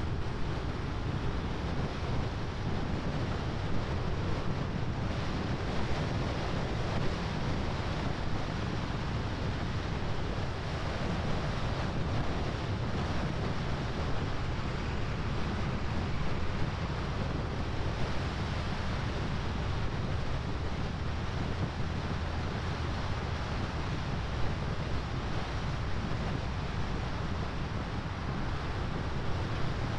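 Steady rush of wind on the microphone and tyre noise from a vehicle driving along a paved road, a deep rumble with a hiss above it.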